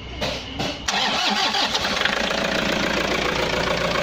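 Toyota HiAce diesel engine turning over on the starter with a few rhythmic cranking strokes, then catching about a second in and running at a steady idle. It now cranks and starts after its fuse assembly was replaced, curing a no-crank fault.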